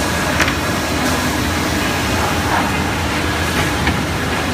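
Heavy-duty wide belt sander running: a steady mechanical drone with a low hum, and a short sharp click about half a second in.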